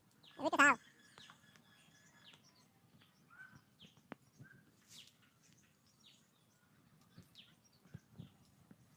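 Sparse bird chirps against quiet outdoor background, with one short, loud, wavering call about half a second in.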